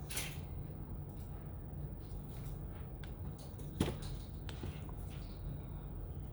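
Light clicks and taps of objects being handled, with one sharper click about four seconds in, over a steady low hum.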